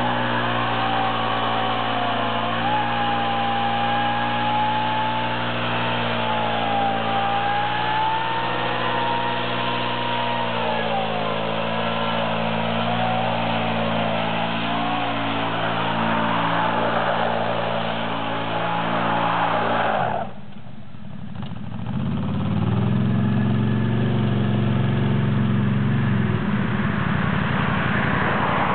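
Can-Am Renegade 800 ATV's V-twin engine held at high revs during a burnout, its pitch rising and falling as the throttle is worked, over a hiss of spinning tyres. About twenty seconds in the sound drops away suddenly, and a lower, steady engine note comes back.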